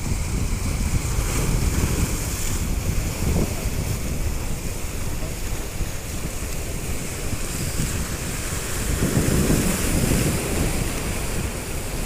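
Sea waves washing and breaking against a rock breakwater, with wind rumbling on the microphone; the surf swells louder about nine seconds in.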